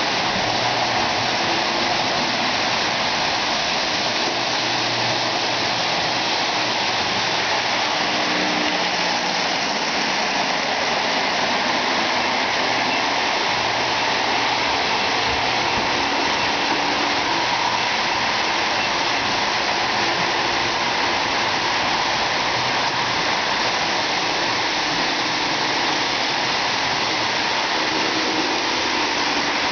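O-gauge model trains rolling around the track: a steady rushing noise of metal wheels on rails and electric motors running, with a faint hum that shifts in pitch.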